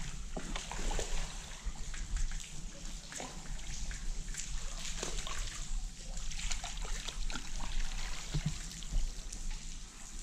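Water splashing and trickling as a hooked crappie is brought to the surface and scooped aboard in a landing net.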